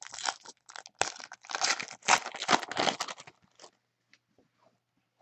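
Plastic crinkling and rustling, such as a foil trading-card pack wrapper being handled, for about three and a half seconds, then only a few faint ticks.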